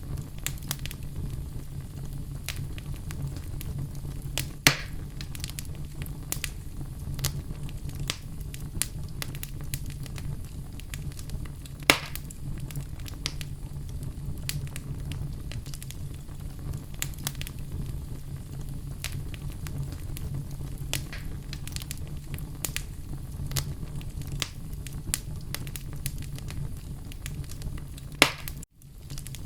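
Wood fire in a fireplace crackling, with many small snaps over a steady low rumble and a few louder pops, about five seconds in, about twelve seconds in and near the end. The sound cuts out briefly just before the end.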